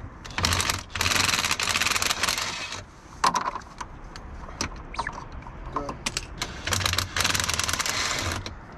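Impact wrench run in two bursts, a long one of over two seconds near the start and a shorter one near the end, hammering rapidly at a stuck bolt in a Can-Am X3's front steering knuckle. Metal tools clink and clank in between.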